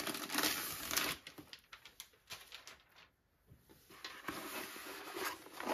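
Thin plastic sleeve around a rolled canvas crinkling and rustling as it is handled, for about a second, then a quiet pause with a few faint ticks, and the rustling starts again about four seconds in.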